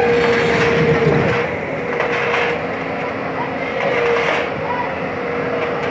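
A JCB tracked excavator's diesel engine and hydraulics running under load as the machine climbs onto a low-bed trailer, a dense machine noise with a steady whine over it.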